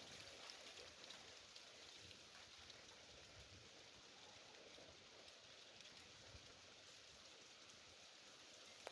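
Faint, steady rain, with the patter of many small drops.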